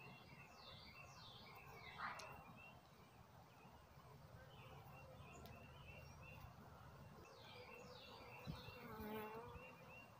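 Faint buzzing of honeybees around an open hive as frames are moved, a steady low hum with one bee buzzing closer, its pitch wavering, about nine seconds in. Faint high chirps sound above it.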